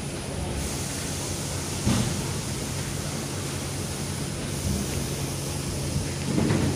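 Steady outdoor rushing noise with a low steady hum underneath, and a soft thump about two seconds in.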